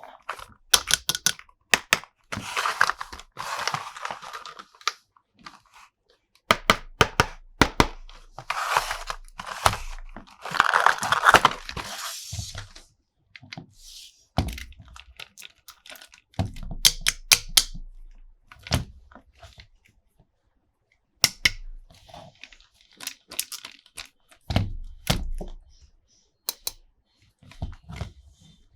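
Packaging being torn and crinkled, with many sharp clicks and knocks of hard plastic toy parts being handled. Two longer spells of tearing and crinkling come a couple of seconds in and again around the middle, and scattered clicks and taps follow.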